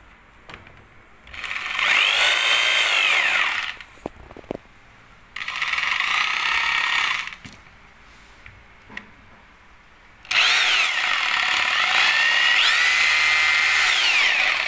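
Makita M8701B 26 mm rotary hammer run in the air with no bit, in three short bursts: each time the motor whines up to speed, runs and winds down. In the last and longest run the speed dips and rises again. A few clicks between the first two runs.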